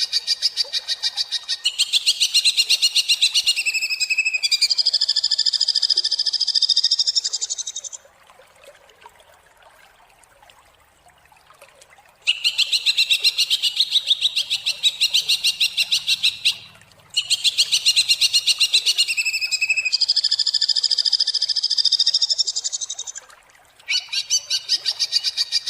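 Green leafbird (cucak ijo) singing harsh, rapid-fire 'tembakan' phrases: long runs of fast repeated high notes, roughly ten a second, in bursts several seconds long. There is a pause of about four seconds partway through.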